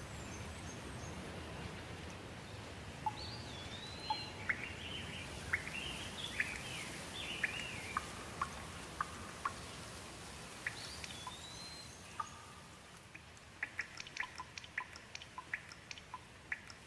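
Light rain hissing steadily while a bird sings phrases of gliding, warbled whistles, then a shorter phrase about two-thirds of the way through. Near the end, water drips in quick, irregular drops.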